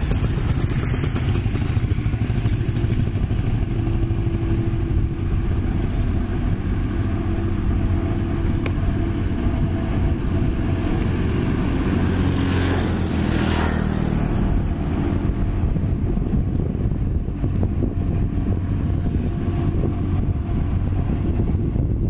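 Sakai TS205 pneumatic-tyre roller's diesel engine running steadily as the roller drives over fresh asphalt. Motorbikes pass close by at the start, and another vehicle goes by about halfway through.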